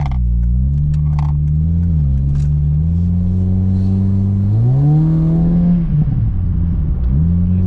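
8th-generation Honda Civic engine through a Skunk2 Mega Power cat-back exhaust, driving under throttle, with a short dip in revs and then a steep rev climb about four and a half seconds in. The note breaks off at the top into about a second of irregular crackling as the throttle closes, which is the exhaust popping on lift-off. The engine note then picks up again near the end.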